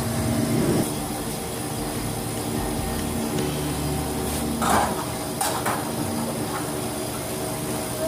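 Steady machine hum, with a few knocks and scrapes a little past the middle as the sheet-metal top cover panel of a display refrigerator is handled and lifted off.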